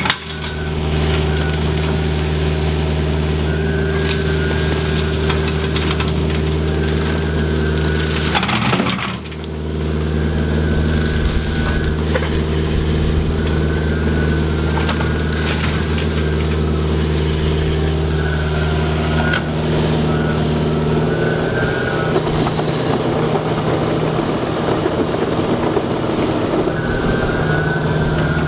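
Hydraulic 48-inch rotary brush mower cutting brush, over the steady drone of the carrier machine's diesel engine under load. Crushing and cracking of wood and brush can be heard through the running machinery. The low engine drone shifts about two-thirds of the way through.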